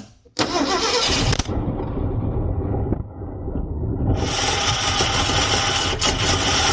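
1967 Ford F100 engine cranking and catching on starter fluid sprayed into the carburettor, running rough with rapid loud popping. It bursts into life about half a second in, sags to a lower rumble, then runs loud again from about four seconds in.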